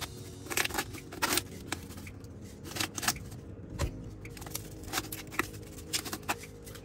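Irregular sharp clicks and taps of small hand tools at work, over faint steady background music.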